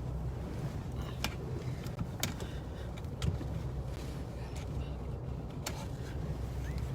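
Steady low rumble inside a moving vehicle's cabin, with a few sharp clicks and knocks scattered through it.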